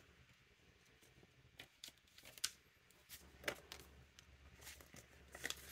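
A few faint rustles and soft clicks of paper banknotes being handled and slipped into the clear plastic pouch of a cash-envelope binder.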